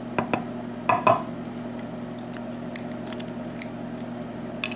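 Small hard clicks and taps of lock parts and tools being handled while the pins are taken out of a gutted Sargent pin-tumbler lock. The loudest is a cluster of knocks about a second in, followed by lighter ticks, over a steady low hum.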